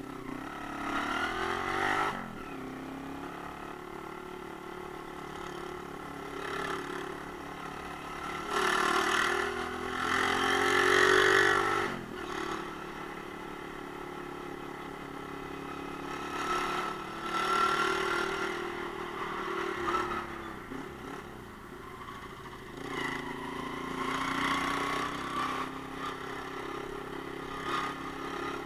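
Romet Ogar Caffe 125's small single-cylinder four-stroke engine pulling the bike through traffic. It revs up in rising runs several times, dropping sharply at the gear changes after them, and runs steadily at part throttle in between.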